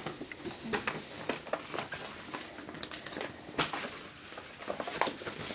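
Paper leaflets and a plastic bag rustling and crinkling as packaging is handled, with scattered small taps and clicks.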